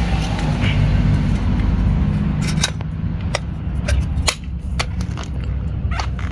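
Plastic clicks and taps, irregularly spaced, from a J1772-to-NACS charging adapter and plug being handled at a Tesla's charge port, starting about two and a half seconds in. Under them runs a low rumble with a steady hum in the first half.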